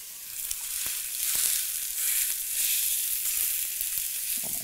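Porterhouse steak searing in hot peanut oil in a cast iron skillet: a steady sizzle with occasional small pops. The sizzle is the sign that the pan is hot enough to sear the meat.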